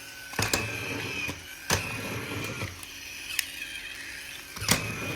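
Small electric motor of a battery-powered talking Thomas toy engine running with a steady whine. Three sharp clicks or knocks break in: one about half a second in, one near two seconds, and one near the end.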